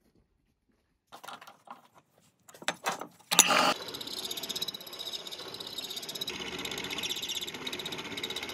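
A few clicks and knocks, then a power tool starts with a loud burst about three seconds in and runs steadily with a fast buzzing rhythm.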